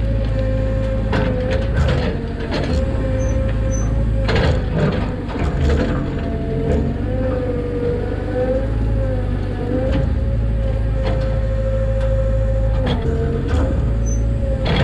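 Mini excavator's engine running under hydraulic load while digging, with a steady whine that dips briefly several times as the boom and bucket are worked. Scattered clunks and scrapes of the bucket in dirt and rocks.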